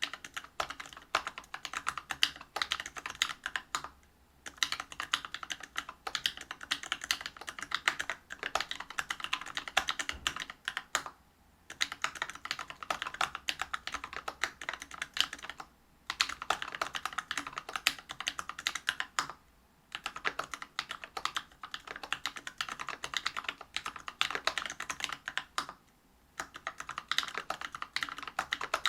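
Typing on a Whale 75 mechanical keyboard with a brass plate, Bingsu POM linear switches and PBT keycaps: rapid keystrokes in runs of a few seconds, broken by five brief pauses.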